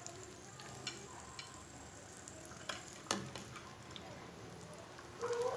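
A handful of garlic sizzling faintly in hot sesame oil in a clay kadai, with a few light clicks of stirring against the pot, the sharpest about three seconds in.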